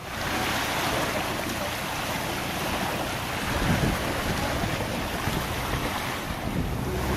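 Wind buffeting the microphone over a steady wash of water around a sailing yacht.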